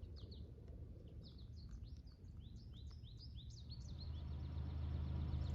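Songbirds chirping, a quick run of many short rising and falling chirps that fade after about four seconds. A low steady rumble grows louder near the end.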